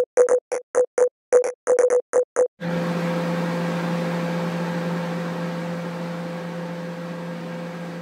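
Microwave oven: a quick, uneven run of short keypad beeps, then from about two and a half seconds in the oven runs with a steady hum that slowly fades.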